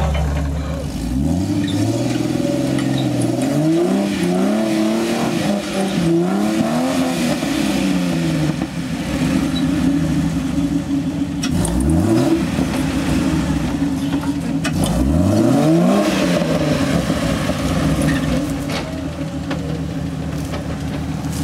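Jeep engine revving in repeated bursts while rock crawling up a steep ledge, its pitch climbing and dropping back several times, with two quick sharp revs past the middle.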